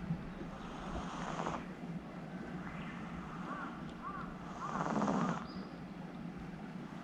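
Sleeping domestic cat snoring: two raspy snoring breaths about four seconds apart, the second louder.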